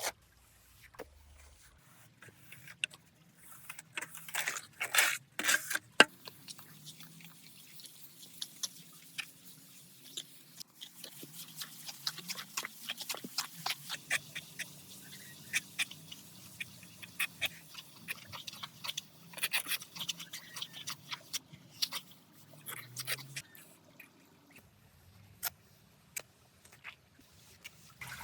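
Close-up crunching, scraping and clicking of soil and small stones being worked by hand, an irregular run of short gritty scrapes with a few louder clacks.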